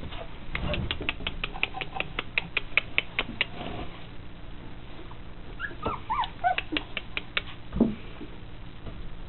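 Three-week-old Austrian Pinscher puppies whimpering in short, high squeaks that rise and fall, about halfway through. Before that comes a quick run of sharp clicks, about seven a second, and near the end a single low thump.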